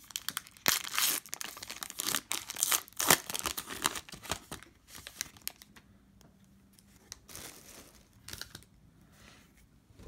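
Foil wrapper of a Panini Prizm football card pack being torn open, a dense crackling crinkle for about four seconds, then softer, scattered crinkles of the wrapper.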